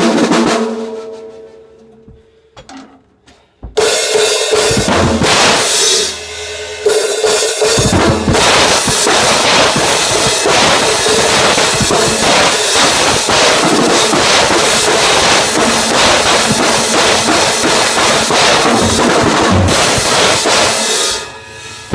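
Acoustic drum kit with crash cymbals. A single hit rings and fades, then a few light taps, and from about four seconds in a continuous drum beat with cymbal crashes that eases off briefly near the end.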